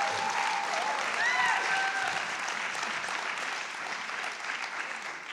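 Audience applauding and cheering, with a few whoops in the first two seconds; the applause fades toward the end.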